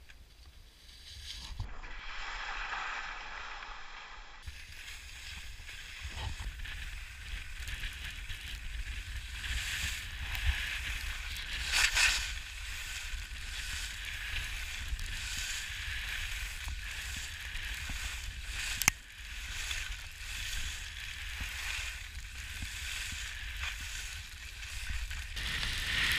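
Skis hissing and scraping over snow while skiing, swelling and fading with each turn, with wind rumbling on the microphone. One sharp knock comes about two-thirds of the way through.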